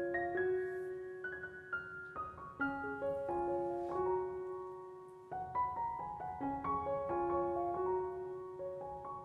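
Background piano music: a gentle melody of single notes, with a short lull about five seconds in before the notes resume.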